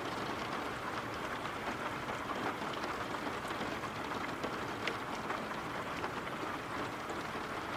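Steady rain falling: an even wash of noise with faint, scattered drop ticks.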